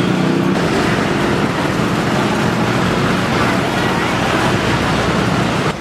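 Heavy highway traffic running past close by, with the low drone of a large engine, and wind buffeting the microphone.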